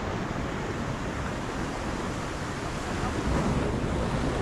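Ocean surf breaking and washing up the beach, with wind buffeting the microphone; a wave swells louder about three seconds in.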